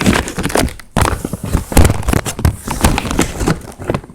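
Close handling noise from a Chromebook being moved and knocked about: a dense, irregular run of knocks, clatters and crackles, several a second.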